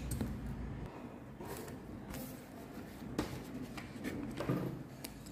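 Faint handling noise of a plastic fountain pen and notebook paper: soft rustling with a few light clicks and taps as the pen is moved about and laid on the page.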